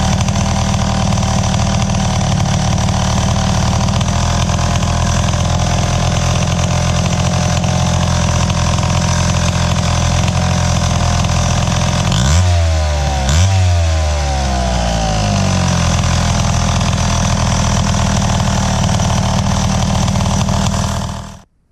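Wright C-50 chainsaw's 77 cc two-stroke engine running steadily on its freshly rebuilt carburettor, blipped twice in quick succession about halfway through, then shut off suddenly near the end.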